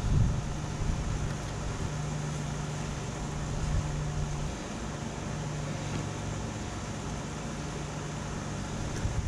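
Small engine of neighbouring lawn-care equipment running steadily, a constant low hum that weakens briefly about halfway through.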